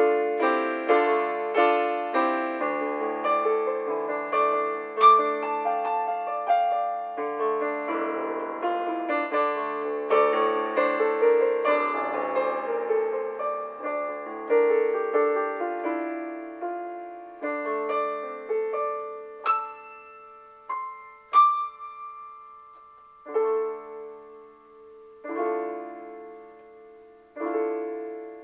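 Solo piano music: a dense passage of continuous notes and chords that thins, in the second half, to single chords struck about every two seconds and left to ring.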